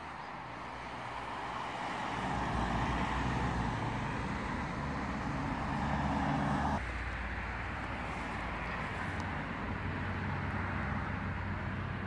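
Motor-vehicle traffic on a nearby road: a low engine hum with tyre noise that grows louder, drops suddenly about seven seconds in, then continues as a steadier traffic hum.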